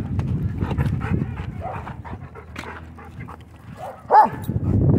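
Dogs playing rough: panting and scuffling, fading off midway, then a single short, loud bark about four seconds in.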